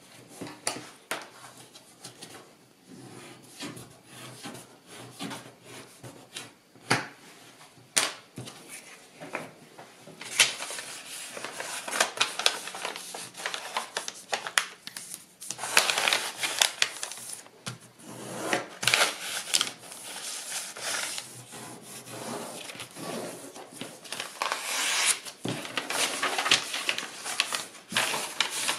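Kraft paper being handled and folded: rustling and crackling as the sheet is lifted and bent over, scattered sharp clicks and taps, and longer stretches of rubbing as the fold is creased down by hand, busier and louder after about ten seconds.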